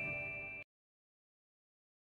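The last held notes of background music fading, then cutting off abruptly about half a second in.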